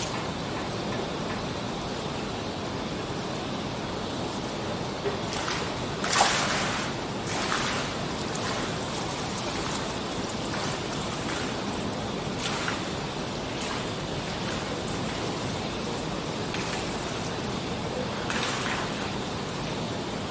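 Steady rush of water spilling over the infinity pool's edge into its overflow channel, with a few short louder moments, the loudest about six seconds in.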